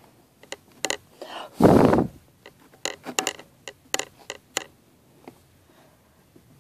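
Light clicks and clacks of small hard makeup items being picked up and handled, about a dozen in quick clusters, with one louder rustling thump near the start.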